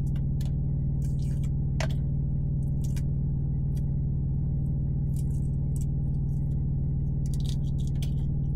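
Shell being peeled by hand off a hard-boiled egg: scattered small crackles and clicks, coming thicker near the end, over a steady low hum.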